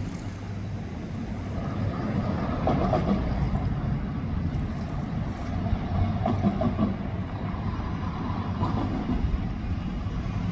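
Diesel locomotives of a heavy freight train running, a steady low rumble that grows a little louder after a couple of seconds.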